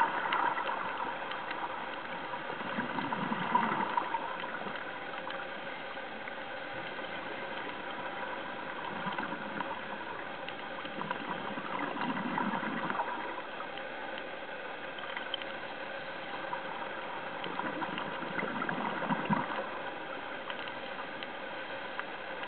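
Underwater sound inside a camera housing: a scuba diver's exhaled regulator bubbles gurgling in four bursts, several seconds apart, over a steady hiss with faint crackling.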